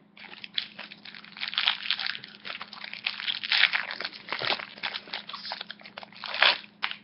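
Foil wrapper of a Yu-Gi-Oh booster pack being torn open and crumpled, an irregular crinkling and crackling with louder swells about two, three and a half, and six seconds in.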